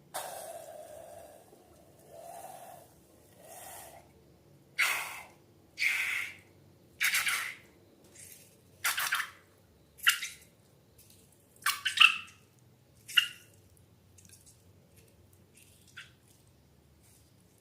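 A series of about a dozen short, wet squelching and splashing sounds at irregular intervals, from slime being squeezed and poured, loudest about twelve seconds in.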